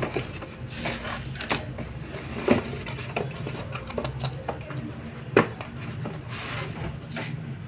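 Cardboard box being handled and set down on a table: scraping and light knocks, with two louder knocks about two and a half and five and a half seconds in.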